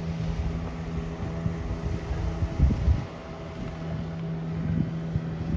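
An engine running with a steady hum, with wind buffeting the microphone. The hum drops out briefly a little past halfway, then comes back.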